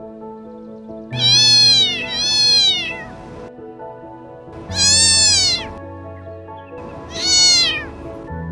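Domestic cat meowing four times, each call rising and then falling in pitch, the first two run together. Background music with steady held notes plays underneath.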